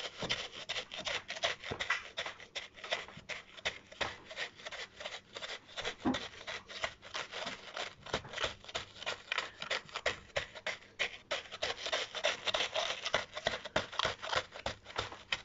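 Sand being rubbed and pressed into the partly frozen surface of a sand track sample: quick, repeated gritty scraping strokes, working the grains against each other to warm and soften the frozen crust.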